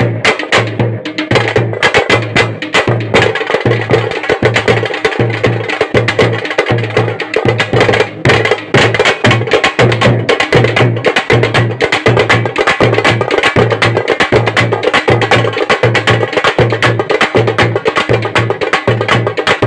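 Thappu frame drums beaten fast with sticks in a thappattam rhythm: dense, rapid strokes over a steady deeper beat that repeats evenly underneath.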